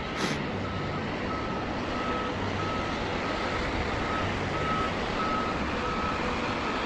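Reversing alarm of a snow-clearing work vehicle beeping steadily, about three beeps every two seconds, over the vehicle's engine running.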